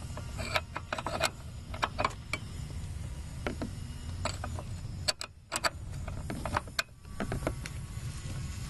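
A 1/2-inch open-end wrench on the brake line fittings of a master cylinder, giving irregular sharp metal clicks and taps as the fittings are worked loose, over a steady low hum.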